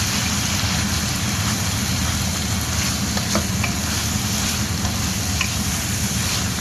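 Shredded pork stir-frying in hot rendered pork fat: a steady sizzle, with a few light clicks from the stirring.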